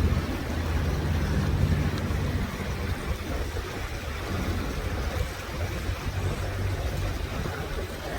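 Steady rush of river water with a low rumble underneath.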